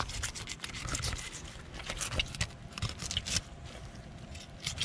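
Fillet knife cutting along a redfish's backbone through its scaled skin, a run of small irregular clicks and scraping.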